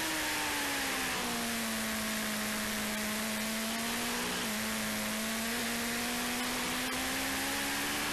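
Motorcycle engine running hard at high revs, its note stepping down about a second in and climbing slowly toward the end, under a heavy rush of wind noise on the onboard microphone.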